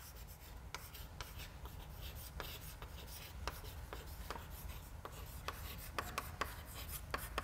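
Chalk writing on a chalkboard: a faint, irregular run of short scratches and taps as the chalk strokes out words, over a low steady room hum.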